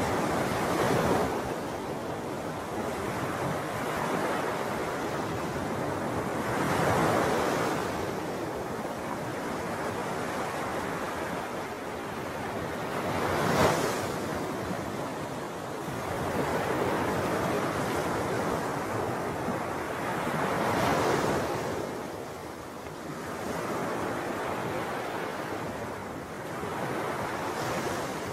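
Wind on the microphone and small waves washing on a lake shore: a steady rush that swells every few seconds, with one sharper surge about halfway through.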